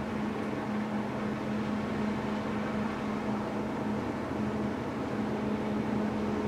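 Steady low machinery hum with a constant droning tone from the LNG-powered container ship CMA CGM Louvre passing under way.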